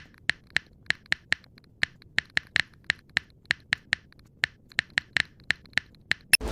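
A run of short, sharp clicks at uneven spacing, about three a second, over a very quiet background; a louder noise comes in right at the end.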